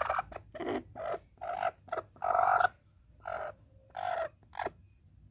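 A broody black hen calling from her nest on a clutch of eggs: a string of short harsh calls, about two a second, with one longer call a little over two seconds in, typical of a sitting hen disturbed by a hand reaching under her.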